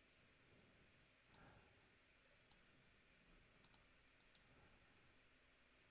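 Near silence with a few faint computer mouse clicks, some in quick pairs like double-clicks.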